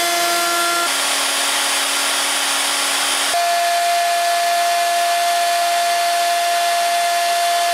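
Electric wood router running at speed and cutting into lumber: a steady high whine over a rushing noise of chips. The whine's pitch and the noise change abruptly twice, about a second in and about three and a half seconds in.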